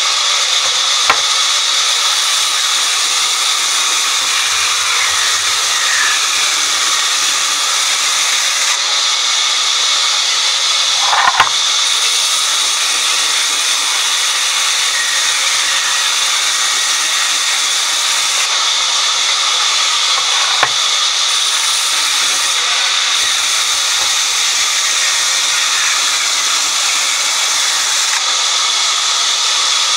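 Large vertical band saw running and cutting through a squared timber: a steady, high hiss of the blade in the wood. A few sharp knocks stand out, the loudest a little over a third of the way in.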